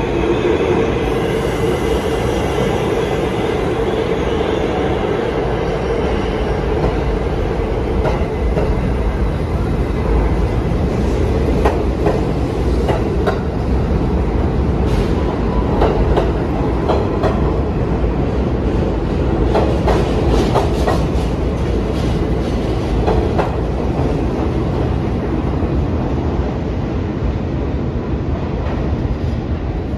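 New York City subway train running through the station: a loud, steady rumble of wheels and motors. A whining tone fades out over the first few seconds, and a run of sharp clicks from the wheels crossing rail joints comes through the middle.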